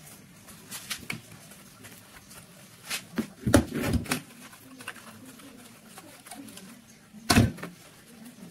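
Steel rifle parts handled on a workbench: a few light clicks, then a cluster of metal knocks and scrapes about three and a half to four seconds in as the bolt is picked up, and one sharp knock near the end.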